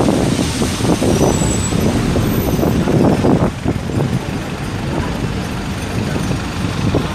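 Road traffic passing close by, heavy vehicles such as buses or lorries among it; it is loudest for the first three seconds or so, then eases slightly.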